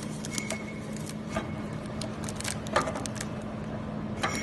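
Steady low hum of a jewelry laser welding machine, with a scattering of light clicks and taps as a small metal piece is handled and set in place at the laser's focus.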